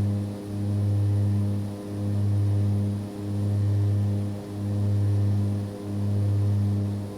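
Aircraft in level, constant flight as a sound effect: a steady low engine drone with overtones, swelling and dipping in loudness about every second and a third.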